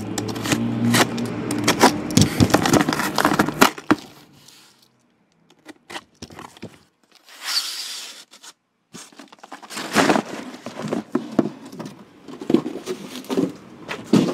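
Cardboard shipping case being opened and the shrink-wrapped hobby boxes inside handled: scraping cardboard, crinkling plastic wrap and short knocks, busiest early and again in the last few seconds. A low steady hum runs under the first few seconds and cuts off about four seconds in.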